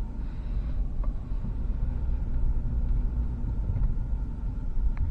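Toyota 120-series Prado with a V6 engine driving along a dirt four-wheel-drive track: a steady low rumble of engine and tyres, with a faint knock about a second in.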